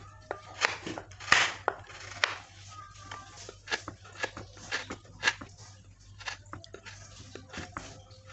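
Knife cutting a block of palm sugar (gula aren) into pieces: a run of irregular crunching knocks, about one every half second, the loudest about a second in.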